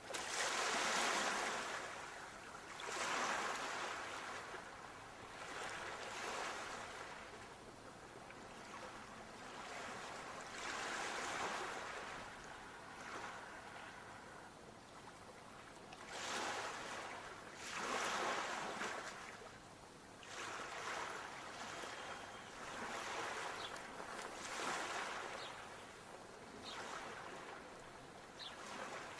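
Sea waves breaking on a shore. The surf swells and falls back in a new surge every few seconds.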